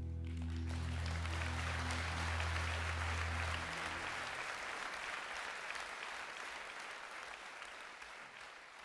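Audience applauding as the music ends, with a low held bass note ringing under the clapping for the first few seconds. The applause then slowly dies away.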